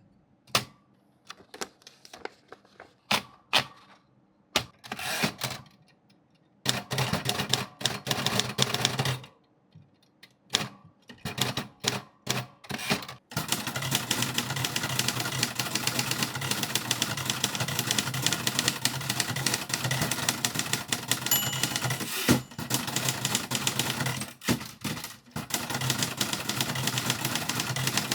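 1950s Royal Quiet De Luxe portable manual typewriter being typed on: a few separate keystrokes at first, then short bursts of fast typing with pauses, and from about halfway on a steady, rapid clatter of keys.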